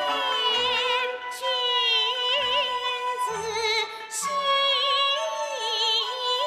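A woman singing a Liuzi opera aria in a high voice with wide, wavering vibrato, over instrumental accompaniment with short low beats.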